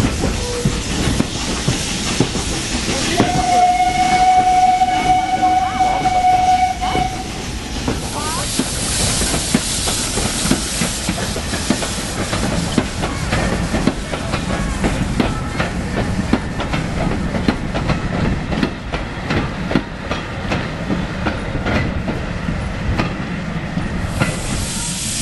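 Moving steam train riding over the rails, its wheels clattering and rumbling. About three seconds in, the locomotive's steam whistle blows one steady note for about four seconds.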